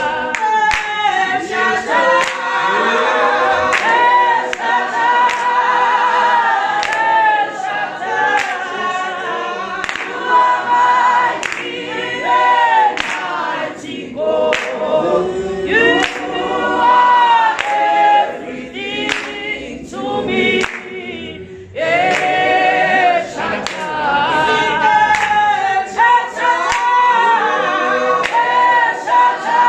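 A choir singing a gospel song a cappella, several voices together, with sharp hand claps keeping time. The singing thins out briefly about two-thirds of the way through, then comes back in full.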